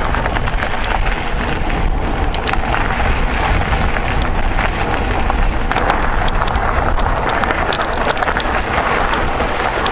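Mountain bike rolling along a trail: steady tyre noise with frequent small clicks and rattles from the bike, over a low rumble of wind on the microphone.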